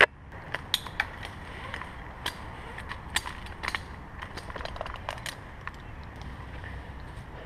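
Tree-climbing gear clinking as an arborist climbs: scattered sharp clicks of metal hardware and a chain lanyard knocking against the trunk, at an uneven pace, the loudest right at the start.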